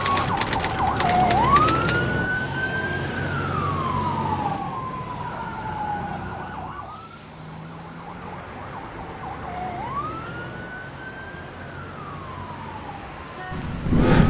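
Fire truck siren wailing in two slow cycles, each rising quickly in pitch and then sliding slowly back down, over a low rumble. It gets quieter about halfway through.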